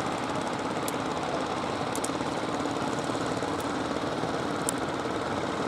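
Boat engine running steadily at a constant pitch and level.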